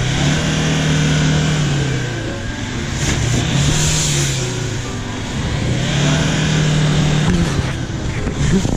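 A rally car's engine revving hard in three long surges, each climbing and then falling away.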